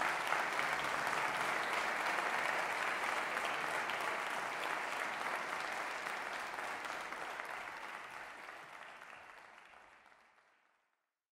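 Audience applauding steadily with dense clapping, fading out over the last few seconds to silence.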